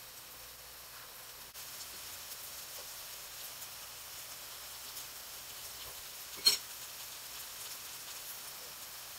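Potato pancakes frying in oil in a frying pan, a steady faint sizzle. One sharp tap about six and a half seconds in.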